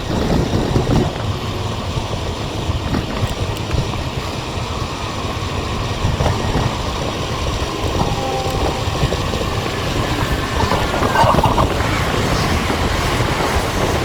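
Wind buffeting a GoPro Hero 5's microphone on a moving bicycle: a steady rushing noise, heaviest in the low end. Short, faint tones come through about eight and eleven seconds in.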